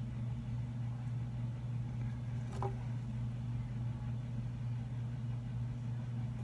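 A steady low hum that doesn't change, with a faint short click about two and a half seconds in.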